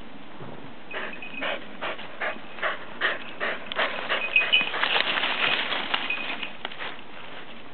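Lapphund hunting field mice: a run of short noisy strokes, about two a second at first, quickening and crowding together in the middle before easing off, with a short high note a couple of times.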